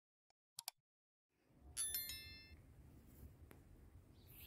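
Subscribe-button animation sound effects: two quick mouse clicks, then a short bright bell-like notification ding about two seconds in. A faint low rumble of outdoor ambience comes in just before the ding and runs on under it.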